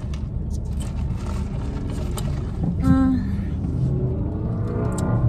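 Steady low rumble of a car running, heard inside the cabin, with a short pitched sound about three seconds in.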